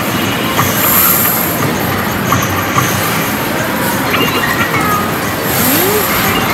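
Steady din of an indoor amusement area, with faint short electronic tones scattered through it and a brief rising sound about six seconds in.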